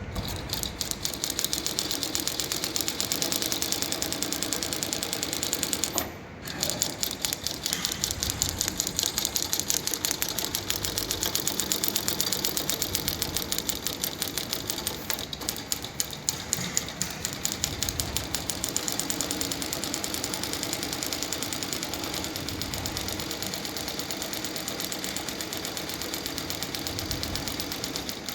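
HighTex 7335 cylinder-bed, triple-feed walking-foot sewing machine stitching at speed, a fast, even clatter. It stops briefly about six seconds in, then runs on.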